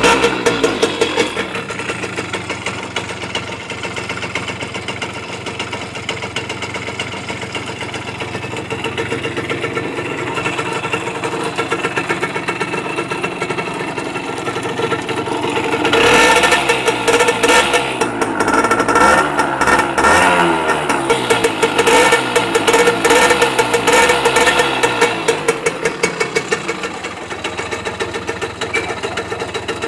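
Simson S51 moped's 50 cc single-cylinder two-stroke engine idling, then revved up and down repeatedly for about ten seconds from a little past halfway before settling back to idle.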